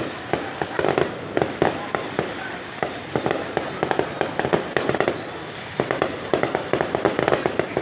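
Aerial fireworks going off in dense clusters of rapid crackling pops and bangs, with short lulls between the clusters.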